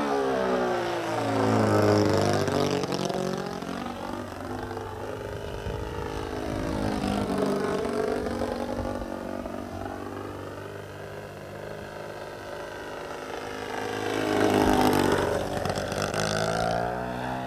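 Radio-controlled model airplane's motor and propeller running in flight, the pitch sweeping up and down again and again as it changes throttle and passes by. It is loudest about two seconds in and again near the end.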